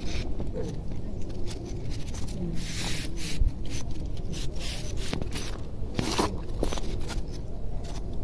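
Cats feeding from an open tin can: scattered clicks and scraping against the metal, with rustling in dry grass.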